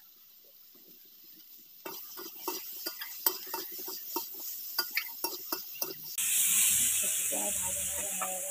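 Metal utensil scraping and clacking against the wok and bowls of frying vegetables, about three strokes a second. About six seconds in, a loud sizzling hiss breaks out suddenly as the hot pan sizzles and steams.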